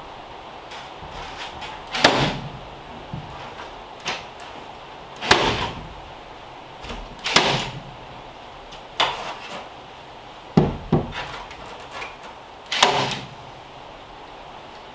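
Staple gun fired overhead into the roof between the rafters, fastening insulation vents. About eight sharp snapping shots come one to two seconds apart.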